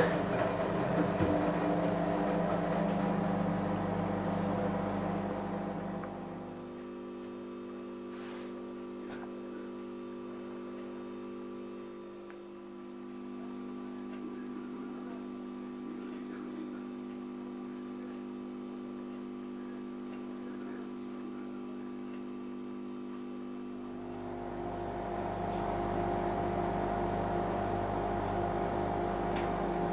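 A steady electrical hum made of several held tones, with no other clear sound. It shifts to a slightly quieter, different-pitched hum about six seconds in and changes back near the end.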